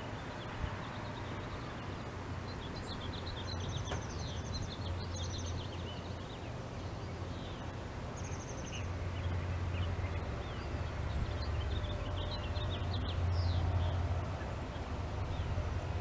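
Small songbirds chirping and twittering in quick, short notes with a few brief buzzy trills, over a steady low background rumble that gets louder in the second half.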